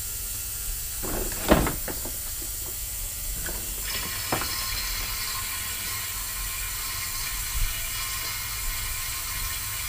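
A few knocks and clicks from handling the plastic-decked lawnmower and its oil-drain tube as it is tipped to drain the last of the engine oil, over a steady hiss. The loudest knock comes about a second and a half in, smaller ones later.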